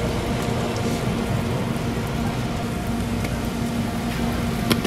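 Hotteok pancakes frying in oil on a flat iron griddle: a steady sizzle over a low steady hum, with a sharp metal click near the end as steel tongs touch the griddle.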